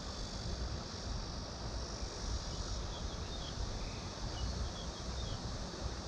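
Steady outdoor ambience: a high insect drone over a broad rush of flowing river water, with low rumbling wind buffets on the microphone. A few faint high chirps come around the middle.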